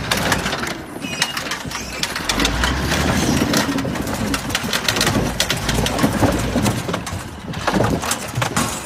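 Cabover Kenworth semi tractor dragged by a chain off a flatbed trailer onto stacked wooden timbers: a steady run of knocks, cracks and clatter of wood and metal as the wheels and frame drop onto the cribbing. A low rumble swells twice, about two seconds in and again near six seconds.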